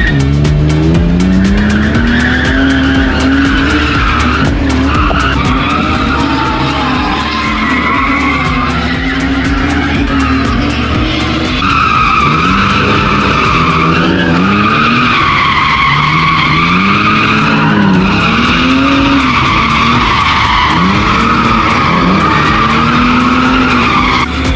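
BMW E46's swapped M54B30 straight-six revving up and falling back again and again through a drift, with the tyres squealing. Heard from inside the cabin, with music with a steady low beat playing underneath.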